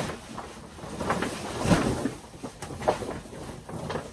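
Grow tent fabric and its reflective lining rustling and crinkling as the tent is pulled out and unfolded, with a couple of louder bumps about two and three seconds in.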